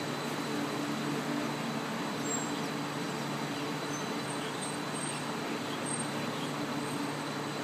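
Steady hum and running noise of a Bombardier rubber-tyred Wenhu line metro train rolling slowly along the depot guideway, a low even drone with no sudden sounds.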